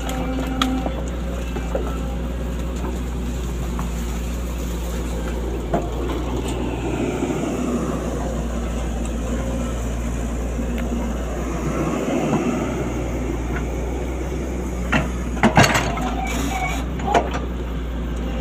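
Sany SY135F excavator's diesel engine running steadily while it works, with a few sharp knocks and clanks about fifteen seconds in.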